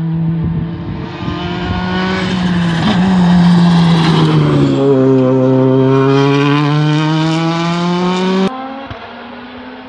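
Hyundai i20 WRC rally car's turbocharged four-cylinder engine accelerating hard past at close range: the pitch climbs, falls as the car goes by, then climbs again. Near the end the sound cuts off abruptly to a fainter engine note.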